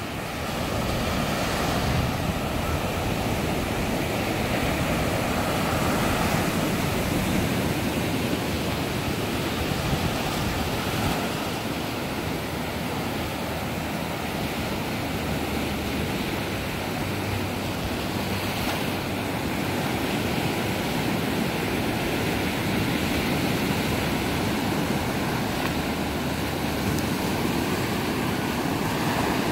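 Gulf of Mexico surf: small waves breaking and washing up a sandy beach in a steady rush.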